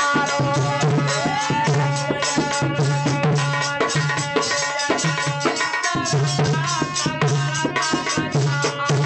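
Instrumental interlude of a folk devotional song: a dholak beaten with both hands in a steady rhythm under a harmonium melody, with sliding notes from a string instrument.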